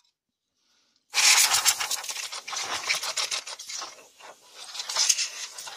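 A stiff painter's brush scrubbing dust off the inside parts of a PlayStation 3, in quick, uneven scratchy strokes that start about a second in.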